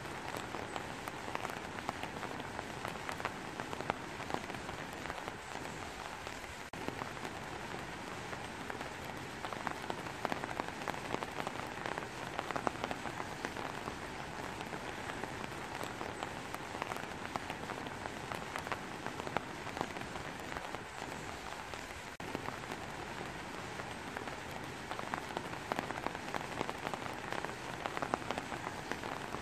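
Steady rain falling: an even hiss with many separate close drop hits scattered through it.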